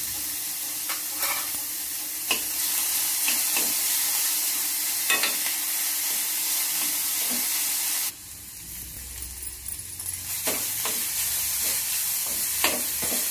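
Diced ivy gourd with garlic paste sizzling in hot oil in a metal kadai, while a spoon stirs it, scraping and clicking against the pan. The sizzle drops suddenly about eight seconds in and picks up again two to three seconds later.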